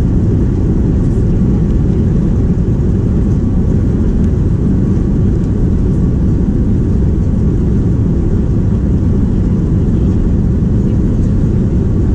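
Airbus A330 jet engines at takeoff thrust during the takeoff roll, heard inside the cabin as a loud, steady, deep rumble with a faint steady whine above it.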